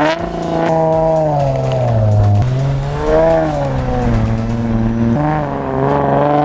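Car engine revving hard and easing off over and over, its pitch swelling up and down several times, as the car is driven in slides and donuts on snow.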